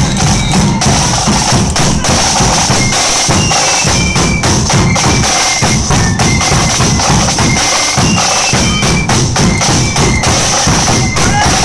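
Marching flute band playing a march: side drums and a bass drum beat out the rhythm under a high, shrill flute melody.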